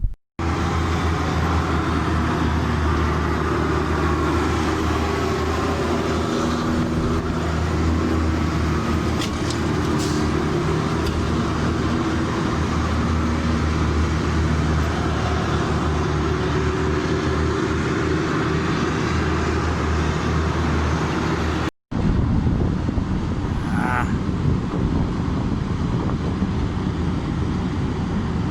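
Large diesel engine of a Caterpillar 6015B mining excavator running steadily at a constant speed, a deep even drone with heavy mechanical noise over it. The sound cuts out for an instant about three-quarters of the way through, then carries on unchanged.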